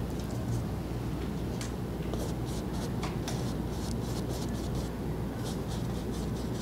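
Paintbrush working oil paint onto a stretched canvas: a series of short, light scratching strokes, over a steady low room hum.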